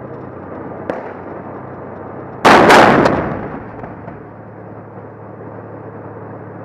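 A T-72 tank's 125 mm main gun firing once, picked up by a camera mounted on the tank itself: a sudden very loud blast about two and a half seconds in, dying away over about a second. The tank's engine runs steadily underneath.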